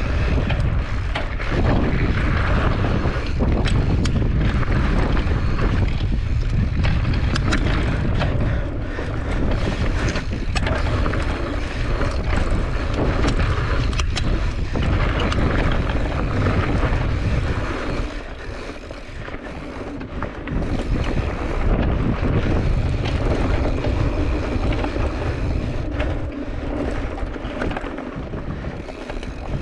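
Wind buffeting a handlebar-mounted GoPro's microphone as a mountain bike rolls down a dirt singletrack, with tyre noise on loose dirt and rocks and scattered sharp clicks and rattles from the bike. The low rumble eases for a few seconds past the middle.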